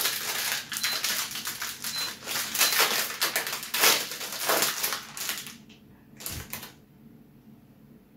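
A plastic bag of chocolate is torn open and crinkled by hand, a dense crackling rustle that stops about five and a half seconds in, followed by a couple of soft knocks. A short electronic beep from the stove's hob repeats about once a second during the first few seconds.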